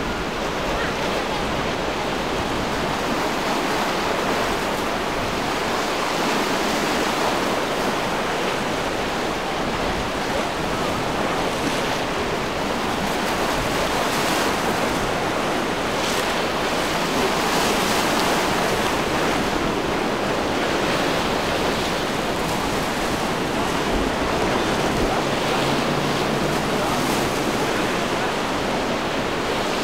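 Steady rush of choppy surf and breaking waves, with wind gusting on the microphone.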